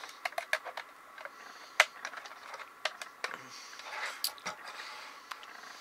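Light clicks and taps of a plastic model train boxcar being handled and turned over on a tabletop. A quick run of clicks comes in the first second, the sharpest click a little under two seconds in, and scattered ticks and faint rustling follow.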